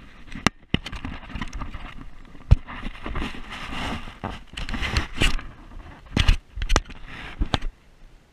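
Handling noise on an action camera: rubbing and scraping against the camera and its housing, with several sharp knocks, the loudest about two and a half seconds in, as it is moved about and re-aimed; it stops shortly before the end.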